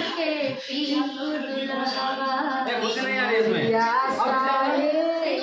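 Several men's and women's voices singing together, mixed with crowd chatter.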